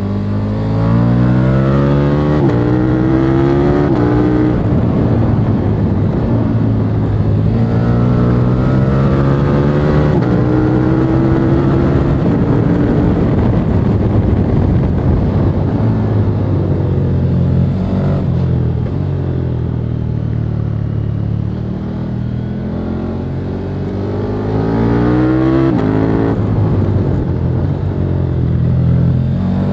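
The 1301 cc V-twin of a stock 2021 KTM 1290 Super Duke R, heard onboard while riding. It pulls up through the gears, the pitch climbing and dropping back at each upshift. It winds down in the middle as the throttle closes, then climbs again near the end.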